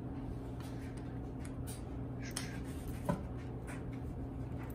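Faint clicks and scrapes of hands working a coil spring and its plastic retainer out of a dual-clutch transmission's torque damper, with one sharper click about three seconds in, over a steady low hum.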